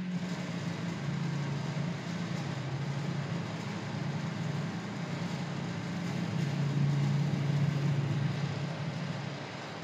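Live experimental noise from radio receivers and analogue electronics: a dense static hiss over a low droning hum that wavers between two pitches. It swells louder about seven seconds in and eases off near the end.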